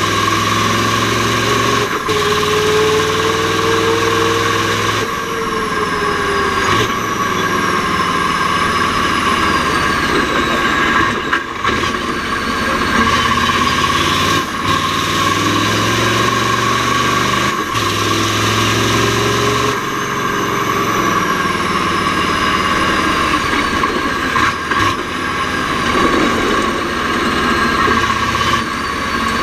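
Mack R-series truck's V8 diesel engine running hard, its pitch climbing and then breaking off at a gear change every two to four seconds through the Roadranger gearbox. A steady high whine sounds throughout.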